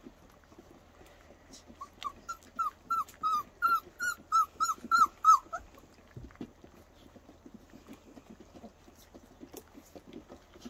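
4-week-old flat-coated retriever puppy whimpering: a run of about a dozen short, high whines, about three a second, lasting a few seconds. After that come faint clicks and lapping from puppies eating out of bowls.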